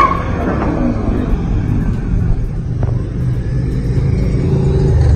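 Dodge Challenger's exhaust rumbling low and steady as the car rolls slowly.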